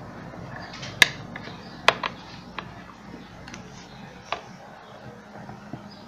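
Scattered sharp clicks and taps of a screwdriver and hands on the plastic base of a blender as its screws are taken out. The loudest come about a second in and just before two seconds.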